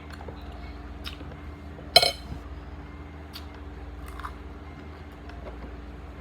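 Utensil clinking against a dish: one sharp, ringing clink about two seconds in and a few lighter taps, over a steady low hum.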